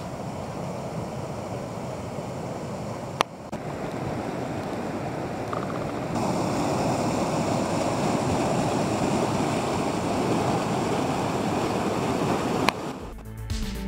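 Rushing white water of a mountain stream tumbling over rocks, a steady noise that grows louder about six seconds in. A sharp click about three seconds in and another near the end, after which music begins.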